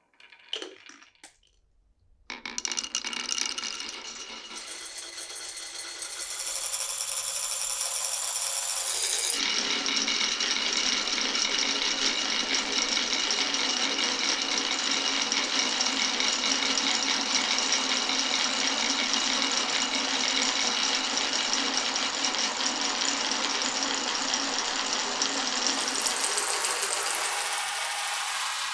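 Marbles rolling and clattering along a marble run's tracks: a few separate clicks, then a dense continuous rattle from about two seconds in that grows fuller around the tenth second and eases slightly near the end.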